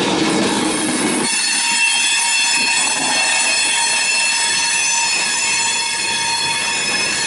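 Railroad cars rolling past, their steel wheels squealing against the rails. About a second in the low rumble drops away, leaving a steady, high-pitched, many-toned squeal.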